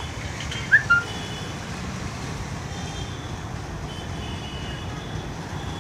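Steady distant city traffic noise with a low rumble. About a second in there is a short, high, falling chirp.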